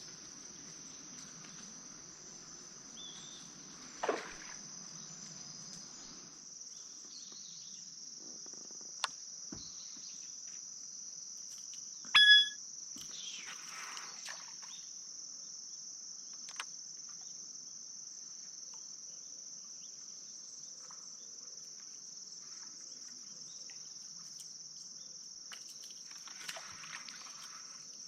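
Steady chirring of an autumn insect chorus, crickets or similar. A few short clicks and knocks sound over it, the loudest a sharp ping about twelve seconds in.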